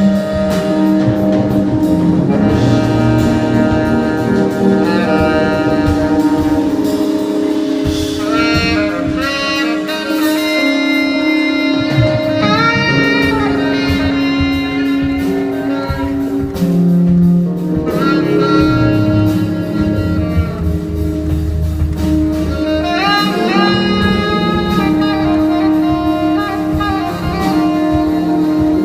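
Live band playing an instrumental passage: saxophone or horn lines bending over guitar, bass and drum kit.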